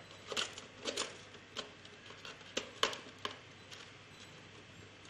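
Light clicks and taps of small parts being handled and fitted by hand into a projector's light-cone assembly, as the Fresnel lens is slotted in beside the light cone. There are about ten sharp clicks, most of them in the first three and a half seconds.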